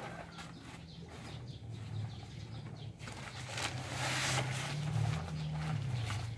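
A woven plastic feed sack rustling as sago pulp is shaken out of it onto a feed pile, then dragged and handled. A low engine hum runs underneath and grows louder about four seconds in.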